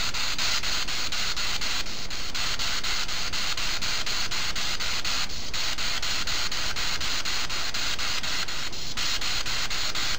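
Spirit box sweeping through radio frequencies: a steady hiss of radio static, chopped into a quick, even rhythm as it steps from station to station.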